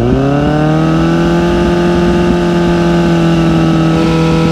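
Kawasaki Z motorcycle engine breathing through an SC Project exhaust, revved up over the first second and then held at a steady speed for a static sound-level test, at the test's target of 4,700 rpm. The revs drop away right at the end.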